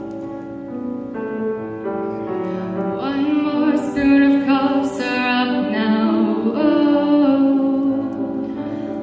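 Female voices singing in harmony: long held notes that step up and down in pitch, with no clear words.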